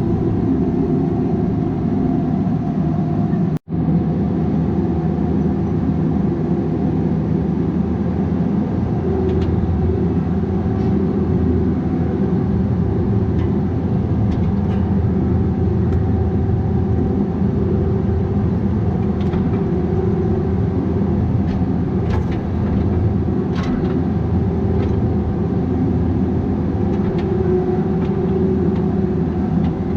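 Bobcat 337G mini excavator's diesel engine running steadily under work, with faint knocks now and then. The sound cuts out for an instant a few seconds in.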